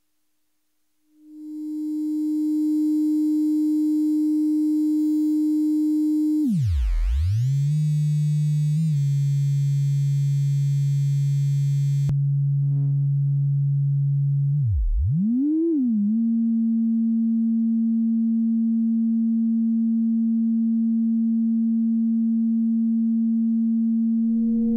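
Klavis Twin Waves digital oscillator in a Eurorack modular synthesizer, patched for FM: a steady, nearly pure tone fades in about a second in. Twice its pitch swoops sharply down and back up, settling first on a lower, buzzier tone with many overtones, then on a steady middle tone; a faint click near the middle.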